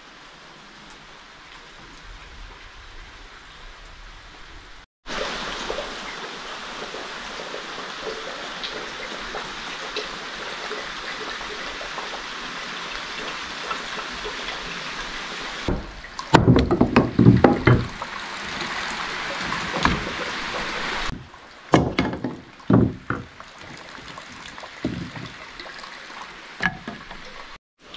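Steady rushing of running water, louder after a cut about five seconds in. From about the middle, a run of loud, irregular knocks and clattering takes over.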